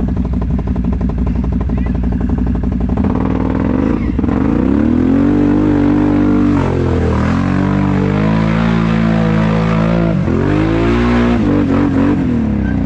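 ATV engine idling steadily, then revving up about three seconds in as the quad is ridden off, its pitch rising and dropping back several times with the throttle.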